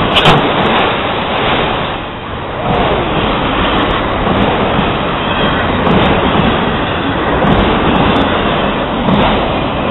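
Freight train of autorack cars rolling past close by: a steady loud rumble and rattle of steel wheels on the rails, with a few sharper clacks.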